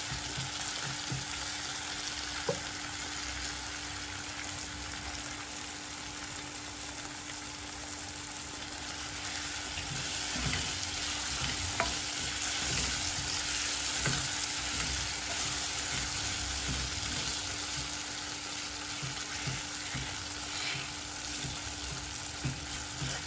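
Diced potatoes, tomatoes and onions sizzling steadily in an aluminium pan over a gas flame, stirred with a wooden spoon that knocks against the metal a few times.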